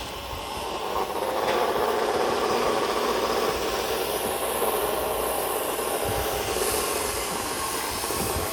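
A 40-horsepower cable-pulling machine running steadily while it pulls high-voltage cable through an underground duct. The noise builds over about the first second, then holds level.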